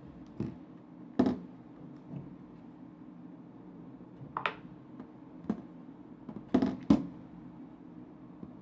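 Handling noise picked up by a smartphone's microphone: about six sharp taps and knocks, the loudest a little over a second in and two close together near the end, over a steady low hum.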